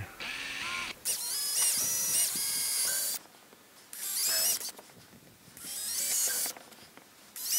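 DeWalt cordless drill whining as it bores 3/16-inch holes into a plastic kayak's gunwale: one run of about three seconds, then two shorter bursts, with the motor's pitch stepping up and down as the trigger is eased.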